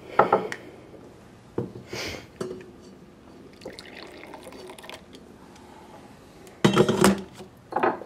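Brewed coffee poured from a stainless thermal carafe into small ceramic cups, with clinks and knocks of the cups and carafe; the loudest clatter comes near the end.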